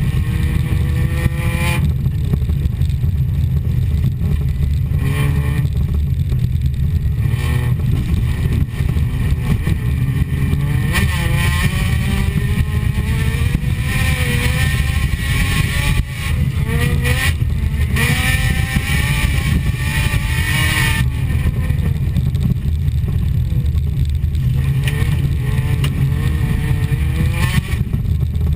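Folkrace car's engine heard from inside the cabin over a heavy rumble, its pitch rising and falling again and again as the car accelerates and eases off on a dirt track.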